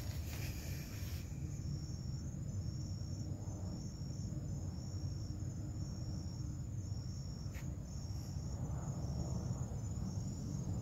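Cricket chirping: short high trills repeating about once a second, over a steady high whine and a low background rumble.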